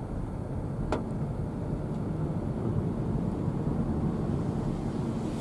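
Airbus H135 (EC135) medevac helicopter running at a distance: a steady low rumble of rotor and turbines. A brief click about a second in.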